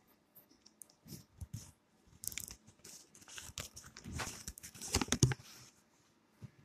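Close handling noise: irregular rustling, crinkling and clicks from clothing and the phone being moved about, loudest about five seconds in.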